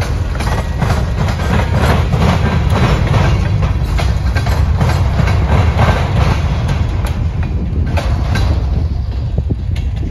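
CPKC freight train's tank cars and covered hoppers rolling past close by: a steady low rumble with repeated wheel clacks on the rails, fading about eight to nine seconds in as the last car goes by.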